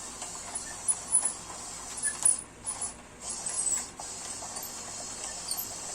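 Homemade tracked robot crawling, its tracks and rollers squeaking as they run without bearings, with a few sharp clicks and knocks, the loudest about two seconds in.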